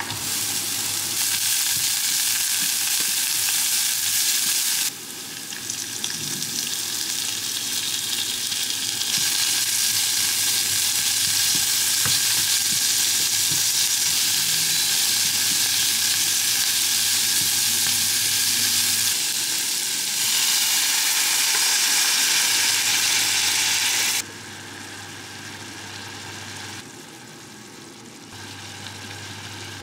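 Chopped onion and squid rings sizzling in hot olive oil in a frying pan, stirred with a spatula. The sizzle starts loud as the onion is scraped into the oil, changes level abruptly a few times, and is quieter in the last few seconds.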